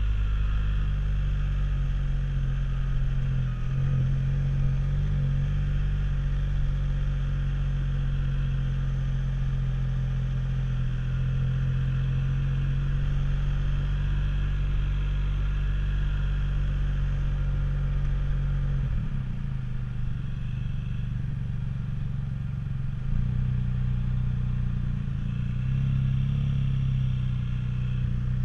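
Motorcycle engine running steadily at low revs as the bike rolls slowly, a constant low drone. About two-thirds of the way through it eases off slightly, then picks up again.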